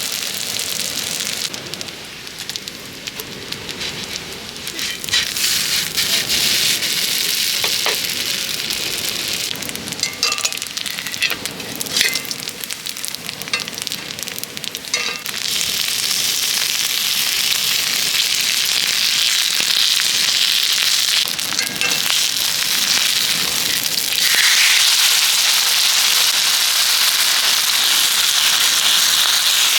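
Food frying and sizzling on a multi griddle pan, with scattered crackles and pops partway through; the sizzle grows louder about halfway through and again near the end.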